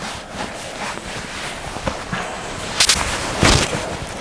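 Two short, sharp swishing snaps, about three seconds in and less than a second apart.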